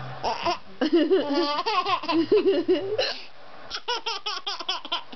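Young child laughing: a long stretch of high-pitched giggling, then quick short bursts of laughter in the second half.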